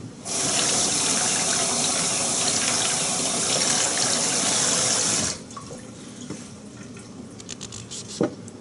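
Water running steadily from a tap for about five seconds, then shut off suddenly, followed by a few faint clicks.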